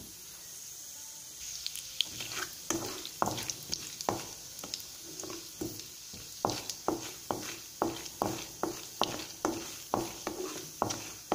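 Mustard seeds spluttering in hot oil with chana dal and cumin: a faint sizzle with sharp pops that begin about a second and a half in and keep coming, two or three a second. The popping is the sign the oil is hot enough for the tempering.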